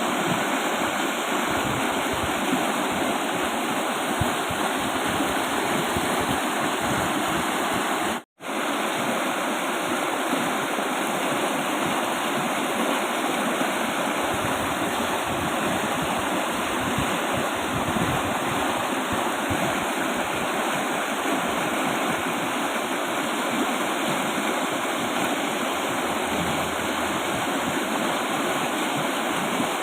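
Strongly flowing river rushing steadily, a dense, even water noise. It cuts out to silence for an instant about eight seconds in.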